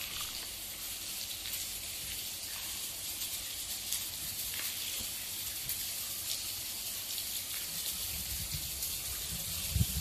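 Steady hiss of wind on the microphone inside a tunnel, with faint scattered ticks. Low buffeting of the wind on the microphone sets in about two seconds before the end.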